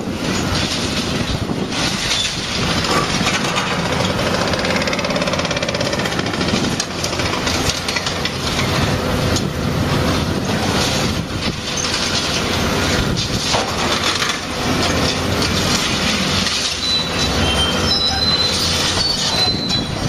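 Volvo 240 excavator working: the engine and hydraulics run steadily under scattered metallic knocks and clanks, with thin high squeals near the end.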